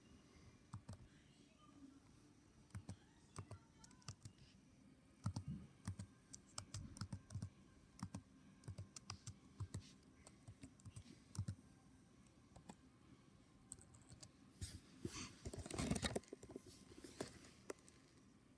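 Keystrokes on a mechanical keyboard, slow and irregular with gaps between single clicks, then a quick, louder flurry of keys about three quarters of the way through.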